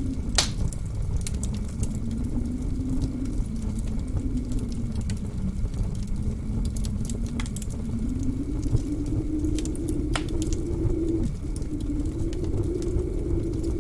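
Blizzard wind howling, its pitch wavering slowly up and down over a deep rumble, with sharp crackles and pops from a wood fire burning in a fireplace; the loudest pops come about half a second in and about ten seconds in.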